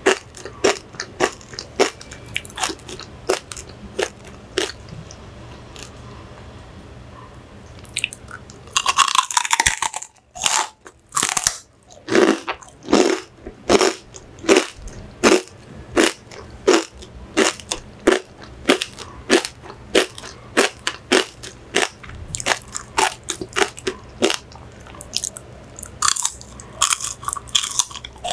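Close-up chewing of crunchy chicharon (deep-fried pork rinds): a steady run of sharp crunches, about one to two a second, with a longer, denser crackling bite about nine seconds in and another near the end.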